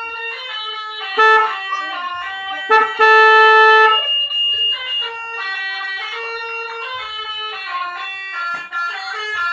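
Four-trumpet bus telolet horn playing a quick melody of steady, pitched horn notes, with a loud held chord about three seconds in.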